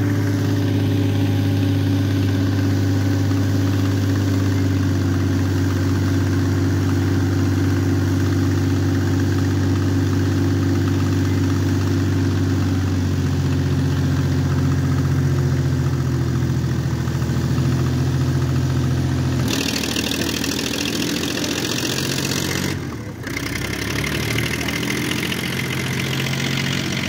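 Farm tractor diesel engine running steadily under load while its hydraulics tip a loaded trailer. The engine note shifts about halfway through, and a loud hiss joins it for about three seconds later on.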